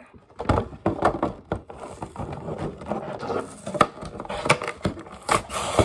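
Clear plastic blister pack of an action figure being ripped open by hand: a run of irregular crackles and sharp snaps as the stiff plastic is pulled and torn.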